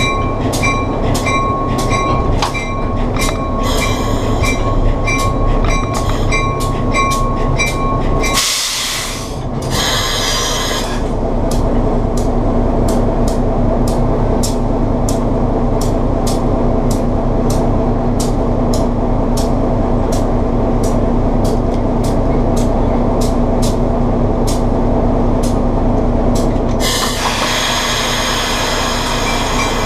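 Fairbanks-Morse H-12-44 switcher's opposed-piston diesel engine running steadily, heard from inside the cab, with a regular ticking about twice a second. A short hiss comes about eight seconds in and another near the end.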